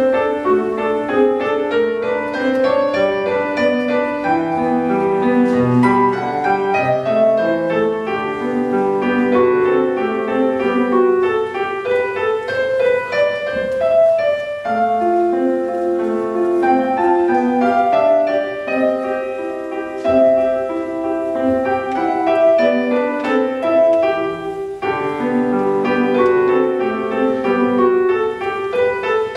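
Petrof grand piano played solo: a piece of quick, dense runs of notes, with a brief pause in the playing about halfway through and another a few seconds before the end.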